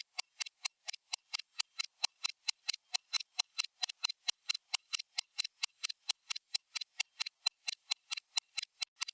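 Stopwatch ticking sound effect: fast, even, sharp ticks, about five a second, with no change in pace.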